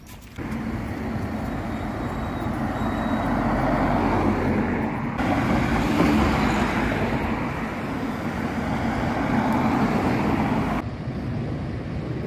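Road traffic noise: cars running and passing on a busy town street, a steady rushing din that shifts abruptly twice.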